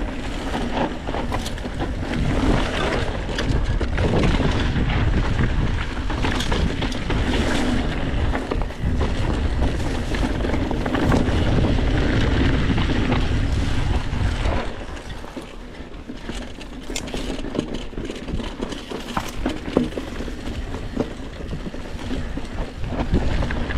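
Mountain bike descending a stony singletrack: wind rushing over the action camera's microphone, with tyres on loose stones and the bike rattling in many small knocks. It is louder for the first half and eases off about fifteen seconds in.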